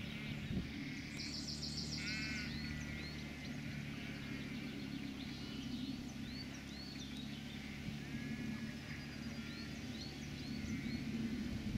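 Quad bike engine running steadily, with many birds calling over it in short chirps and trills.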